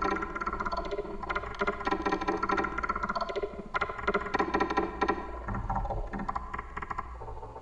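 Dense crackling, clattering noise with scattered ringing tones over a steady low rumble, thinning out about five and a half seconds in.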